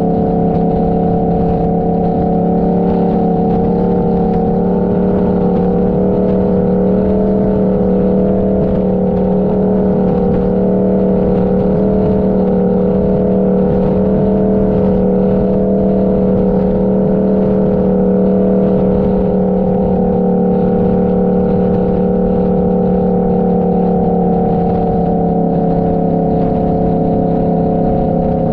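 Motorcycle engine running at a steady cruising speed, its note holding one pitch throughout. Its upper tones waver slowly for a stretch in the middle, over a constant low rumble.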